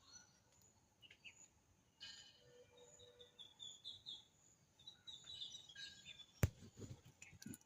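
Nestling birds giving faint, high-pitched begging chirps in short runs of quick peeps. A sharp click comes about six and a half seconds in.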